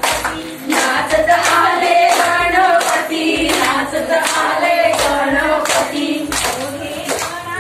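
A group of women clapping in a steady rhythm while dancing in a circle, along with a song sung by women's voices over a steady low beat.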